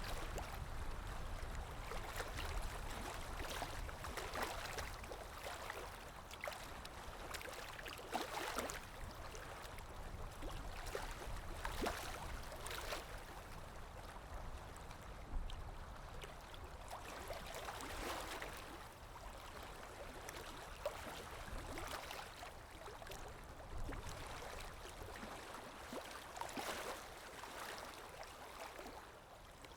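Calm waves lapping gently, washing in with a splashy hiss every three to four seconds over a low rumble of water.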